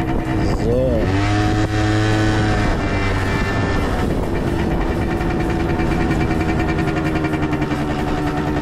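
50cc scooter engine running under way. Its pitch rises and falls briefly about a second in, then holds fairly steady.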